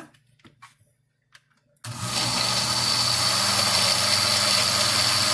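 Countertop blender switched on about two seconds in and running steadily, grinding Oreo biscuits and milk into a paste. Before it starts, a few light clicks as the lid is pressed on.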